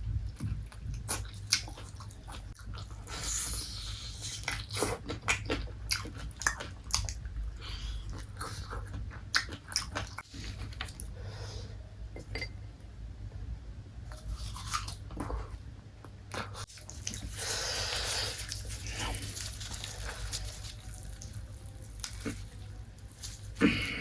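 Close-miked chewing and crunching of crispy KFC fried food, with many short, sharp crunches and bites over a steady low hum.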